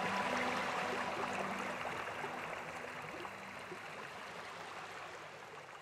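Steady running water, like a stream, with the last faint notes of soft background music dying out under it about three seconds in; the whole sound fades out gradually.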